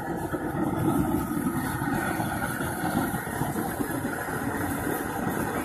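Propane jet burner under a crawfish boiling pot running with a steady rushing roar.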